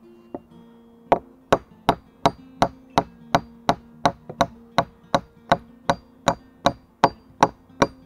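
Nail being driven into a wooden pole beam with the back of a hatchet: a single light tap, then from about a second in a fast, even run of sharp blows, about three a second.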